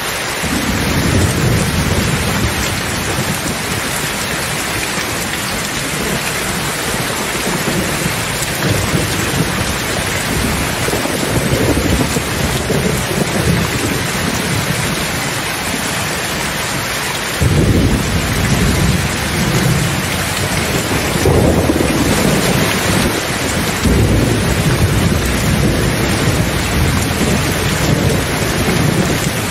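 Steady rain with repeated low rolls of thunder; the strongest rumble starts suddenly a little over halfway through.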